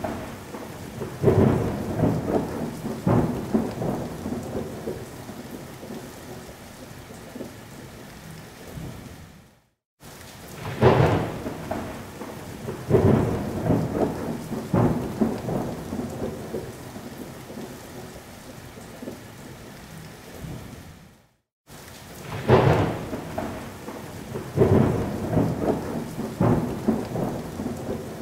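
Thunderstorm sound effect looping: several loud thunder rumbles over steady rain, which then fades to rain alone. The same stretch of about twelve seconds repeats twice, with a brief cut to silence between repeats.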